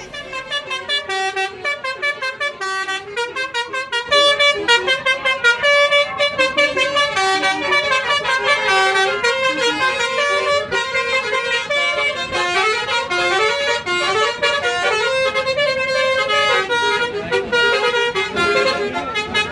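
Tour bus telolet Basuri musical horn playing a tune of short stepped notes, several a second, a little louder from about four seconds in.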